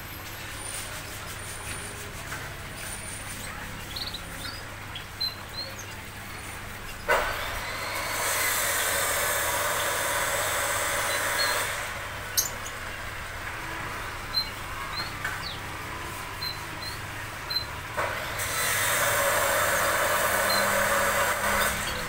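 Two bursts of loud hissing, each about four seconds long, starting suddenly with a click about seven and eighteen seconds in, over a low steady hum. In the quieter stretches, faint short high chirps from small birds.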